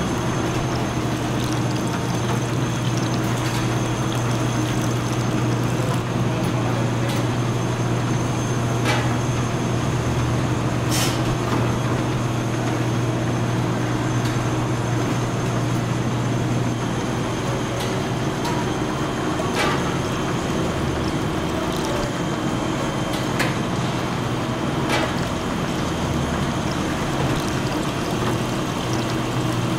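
Automatic bottle-filling machinery running: a steady low hum with a thin high whine over it, and a few sharp clicks scattered through. The hum eases a little about halfway through.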